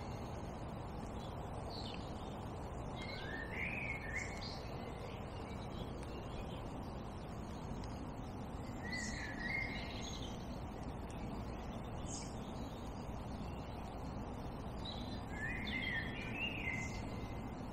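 Songbird singing short chirping phrases, four of them spaced a few seconds apart, over a steady low background hum.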